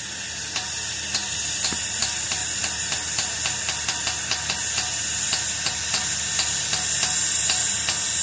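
Baldwin 4-6-2 Pacific steam locomotive No. 425 hissing steam steadily, slowly growing louder, with a regular sharp ticking about three times a second.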